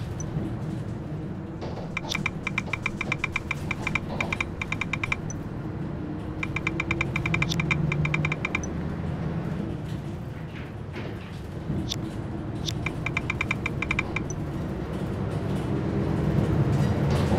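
Smartphone keyboard tap clicks in three quick runs, each key press a short click, over the steady low rumble of a bus engine and road noise inside the cabin.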